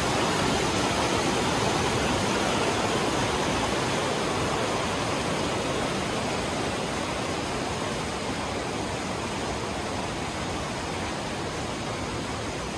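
Steady rush of a mountain creek's flowing water, slowly growing fainter.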